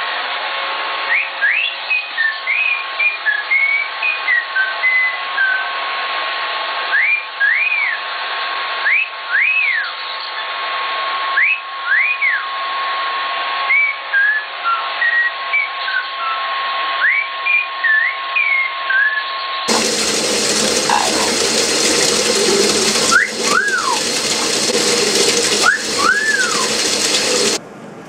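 Amazon parrot whistling a tune: phrases of clear whistled notes, some in quick runs and many as single arching notes that rise and fall, with short pauses between phrases.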